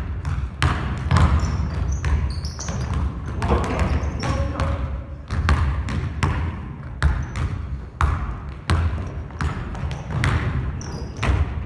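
A basketball dribbled on a wooden gym floor during one-on-one play: sharp, irregular bounces, about one or two a second, with sneakers squeaking as the players cut and drive.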